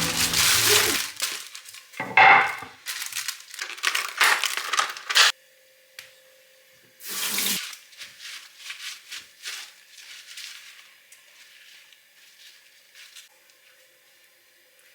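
Kitchen food-prep handling sounds: a run of rustling and clattering for about five seconds, a short pause, another burst, then fainter scattered clicks that die away. A faint steady hum runs underneath from the middle on.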